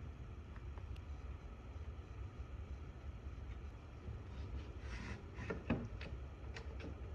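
Faint low rumble of room noise, with a few light knocks and clicks in the second half.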